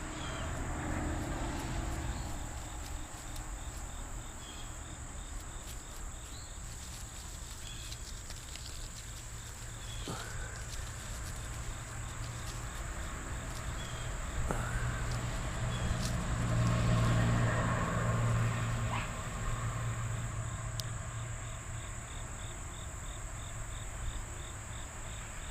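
Insects chirping and trilling steadily in a constant outdoor chorus, with evenly repeating chirps. A low rumble swells and fades around the middle.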